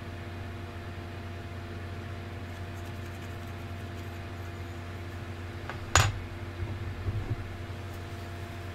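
Steady low hum of room tone with a faint fan-like background, broken about six seconds in by a single sharp knock and a few softer bumps after it.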